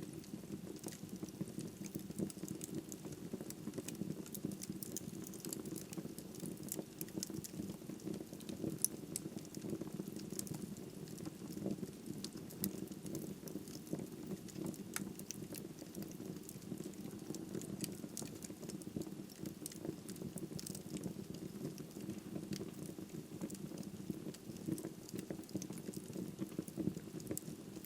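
Wood fire in a fireplace crackling and popping steadily, with a continuous low rush of flames under many small sharp snaps.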